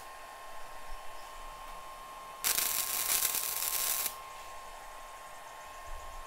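Flux-core wire welder arc crackling in one burst of about a second and a half, starting a few seconds in, as a short stitch weld is laid on a sheet-metal patch plate. A faint steady whine runs underneath.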